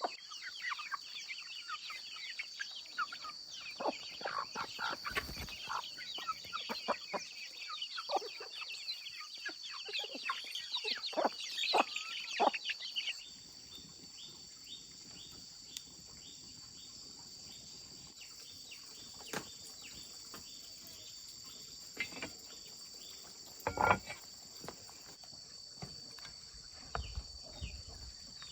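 Chickens clucking, with a steady insect drone behind them. About halfway through the clucking stops abruptly, leaving only the insect drone and a few scattered knocks.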